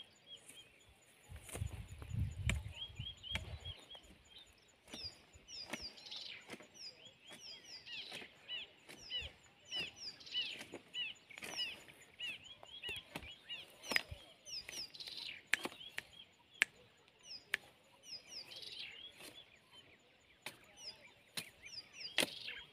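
Birds calling in scrubland: a steady run of quick, repeated chirps, with a higher, short falling note repeated about once a second from about five seconds in. Scattered sharp clicks and a brief low rumble about two seconds in.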